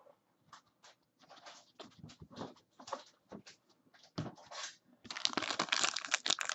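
A foil trading-card pack wrapper being torn open and crinkled by hand. A few faint clicks and rustles of handling come first; the loud tearing and crinkling starts about five seconds in.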